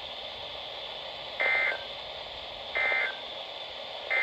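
Emergency Alert System end-of-message data bursts: short, identical warbling digital squawks, repeated about every second and a half, with the third just starting. They mark the end of a NOAA Weather Radio warning and play over steady radio hiss.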